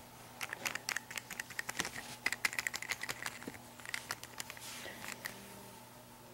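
Small plastic toy figures handled by hand: a doll and a saddled model horse tapped and knocked together in quick, irregular light clicks that die away about five seconds in.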